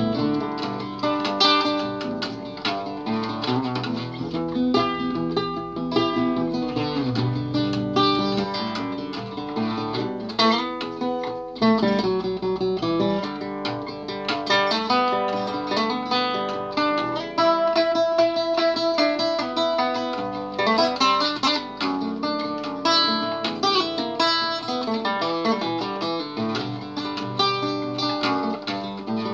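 Classical guitar played solo: picked notes and ringing chords in a continuous instrumental piece.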